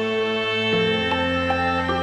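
Slow, sad-sounding instrumental background music with sustained string-like notes over a steady low bass.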